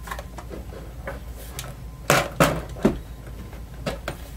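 Pinball backbox speaker-and-display panel being handled and set into place: three sharp knocks in quick succession about two seconds in, with lighter clicks before and after.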